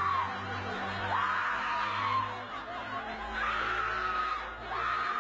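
A woman's repeated high-pitched cries, several in a row, each rising sharply and then trailing off, half shriek and half laugh.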